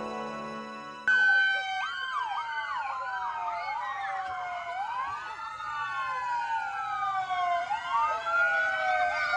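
Background music cuts off about a second in. Several police car sirens then wail together, their rising and falling tones overlapping.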